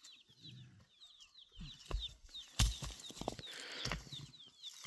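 Chicks peeping: a run of short, high, falling chirps, several a second. A few brief knocks sound in between, the loudest about two and a half seconds in.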